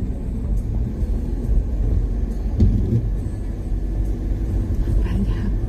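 Steady low rumble of a moving car, heard from inside the cabin, with a brief louder bump about two and a half seconds in.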